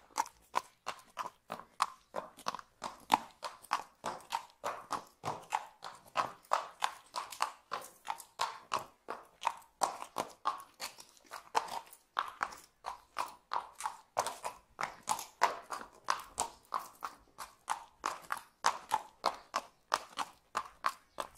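Horse hooves clip-clopping at a steady walk, about three sharp strikes a second.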